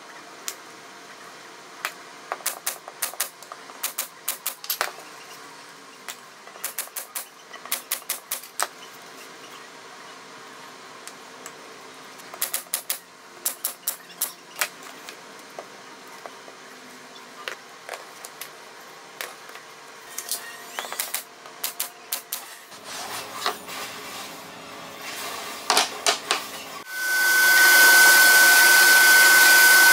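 Pneumatic pin nailer firing into walnut slats: sharp snapping shots in quick runs of several at a time, with pauses between the runs. About 27 seconds in, an edge belt sander starts and runs loudly and steadily with a high whine.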